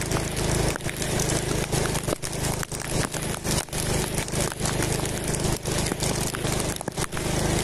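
Motorcycle engine running steadily while riding on a wet road, under a rushing haze of wind and road noise that dips briefly many times.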